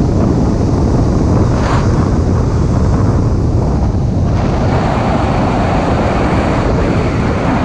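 Strong airflow buffeting the microphone of a camera carried in flight on a tandem paraglider: a loud, steady rushing rumble that grows brighter about four seconds in.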